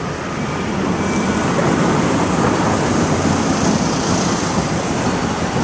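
City traffic on a rain-wet street: a steady hiss of tyres on wet pavement and engine noise, swelling after about a second and holding.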